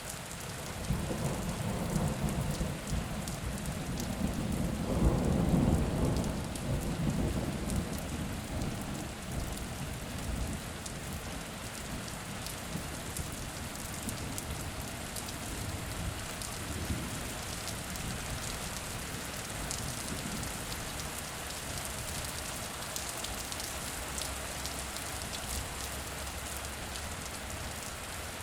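Steady rain falling, with a long, deep rumble of thunder rolling through in the first nine seconds or so, loudest about five seconds in, and a fainter rumble near the middle.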